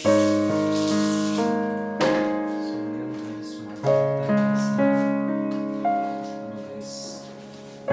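Background piano music: slow chords struck every second or two, each ringing out and fading before the next.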